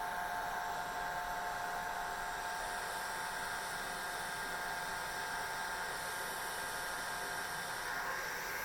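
Hair dryer running steadily: a rushing hiss of air with a constant motor whine.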